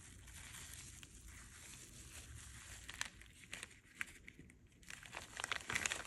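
Plastic cling wrap crinkling and crackling as it is folded and crumpled by hand, with a denser flurry of sharp crackles near the end.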